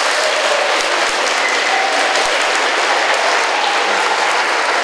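Audience of schoolchildren and adults applauding steadily.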